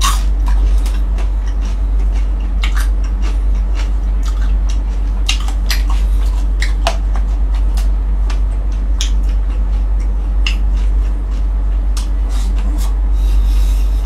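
Close-up chewing and biting of crispy fried round scad (galunggong) and rice, with scattered sharp crunches and clicks at irregular moments, over a loud steady low hum.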